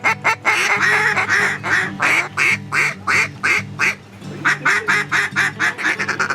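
Rapid series of duck quacks, about three a second, breaking off briefly about four seconds in and then picking up again faster.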